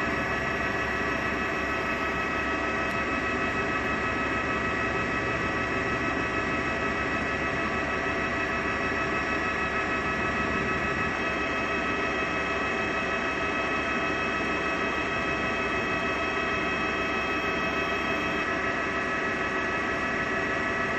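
Jet airliner engines running: a steady drone with several high, fixed whining tones over it.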